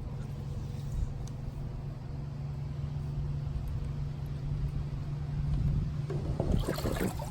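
A steady low mechanical hum throughout, with a louder stretch of clattering noise near the end.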